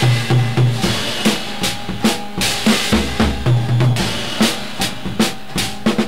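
A 1968 45 rpm single playing on a record player: an instrumental stretch of drum kit hits at a steady beat, about two a second, under low bass notes, with no singing.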